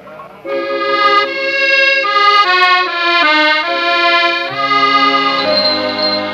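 Background music: a melody over held chords on a reedy instrument, starting about half a second in, with the notes changing every half second or so.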